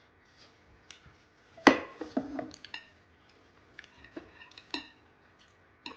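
Cutlery clinking and knocking against a dish during a meal: a sharp knock about two seconds in, then several short ringing clinks.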